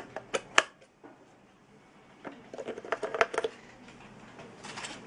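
Light clicks and taps: two sharp clicks about half a second in, a quick cluster of clicks about two and a half to three and a half seconds in, and a short rustle near the end.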